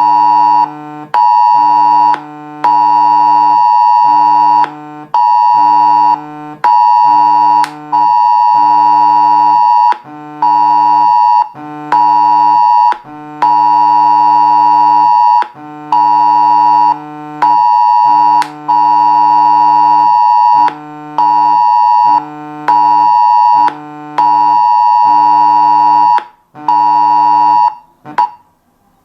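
Smartphone emergency warning (Cell Broadcast) alert tone sounding for a test alarm: a loud, shrill electronic tone pulsing on and off in long and short stretches, cutting off about a second before the end.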